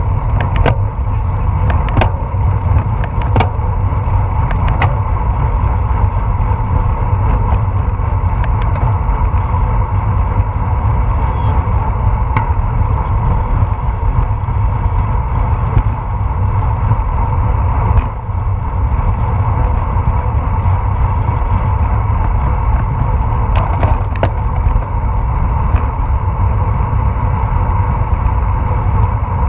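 Steady wind noise and road rumble on the microphone of an action camera mounted on a moving bicycle, with a handful of short sharp clicks scattered through.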